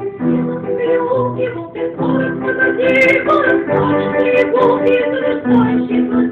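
A woman singing a song in Russian with vibrato, accompanied on piano.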